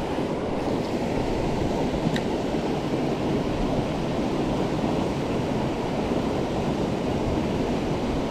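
A steady rushing noise, strongest in the low range, with a faint click about two seconds in.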